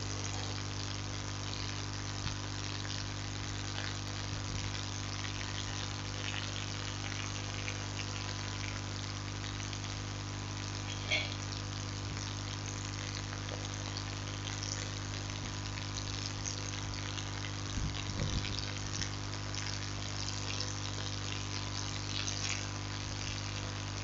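Steady background hiss with a low electrical hum underneath, and a few faint clicks.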